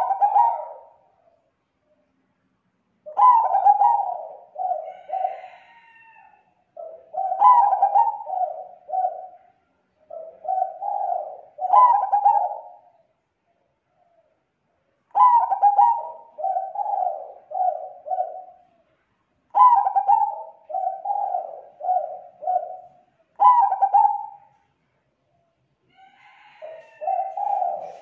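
Zebra dove (perkutut) singing its cooing song: about eight phrases a few seconds apart, each opening with a sharp higher note and then rolling into a run of short, rapid coos.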